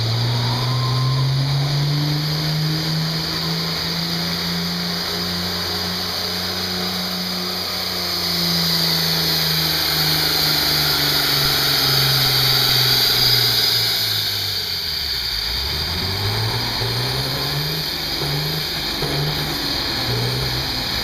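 John Deere 4320's turbocharged six-cylinder diesel working at full load while pulling a weight-transfer sled, with a steady high hiss over it. The engine note climbs in the first few seconds, holds, then sinks steadily as the tractor bogs down under the growing load, falling to a deep low about fifteen seconds in as the pull ends. After that come several short revs up and down.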